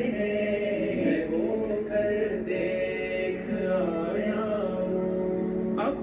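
A naat being sung: a slow vocal melody of long, gliding held notes with no clear words, over a steady low drone. A short click comes just before the end.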